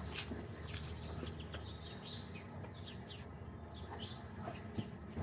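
Small birds chirping in short, scattered high notes over a low steady background hum, with one sharp loud knock right at the end.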